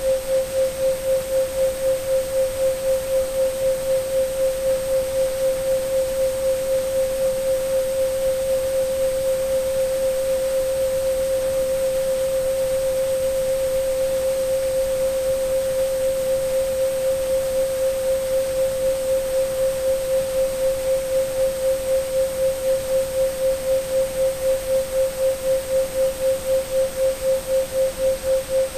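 A steady 528 Hz sine tone, pulsing evenly and rapidly in loudness as a binaural-beat pattern tuned to the 7.83 Hz Schumann resonance, over an even hiss of pink and white noise. A faint, very high steady tone sits above it. The pulsing is deeper near the start and end and shallower in the middle.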